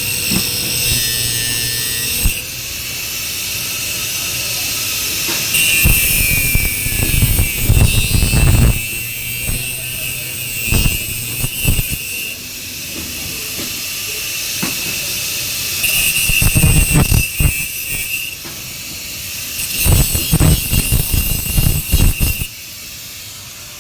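Metalworking machine running with a steady hiss and a high whine, rising several times into louder, rougher stretches of a few seconds each.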